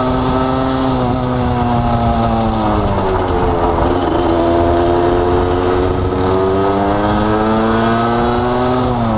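Gilera SMT supermoto's two-stroke engine running under way, with wind noise. The engine note sinks about three seconds in, climbs slowly again, and drops near the end.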